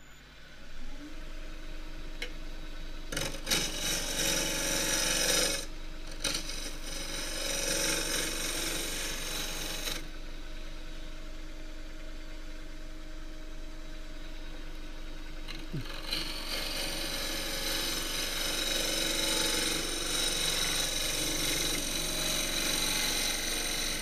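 Wood lathe running with a steady motor hum while a 3/8-inch spindle gouge cuts the spinning green casuarina bowl, taking off a flat area in long hissing passes, from about 3 to 10 seconds and again from about 16 seconds on.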